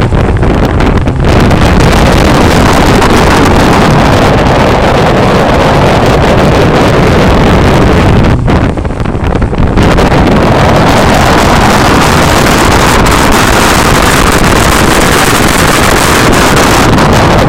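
Mazda 323F BA's 1.5-litre four-cylinder engine driven hard on a rally stage, heard from a camera at the front left wheel, together with tyre noise and heavy wind buffeting on the microphone. Brief lull about eight and a half seconds in, where the engine eases off before pulling again.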